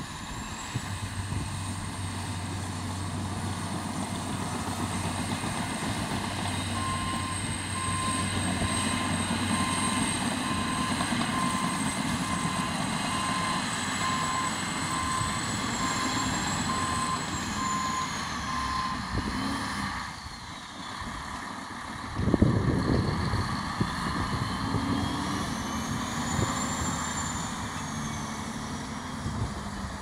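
Heavy diesel engines of a Caterpillar D6N bulldozer and a haul truck running at work, with a reversing alarm beeping about once a second for around twelve seconds midway. The engine noise drops briefly, then surges louder all at once about two-thirds of the way through.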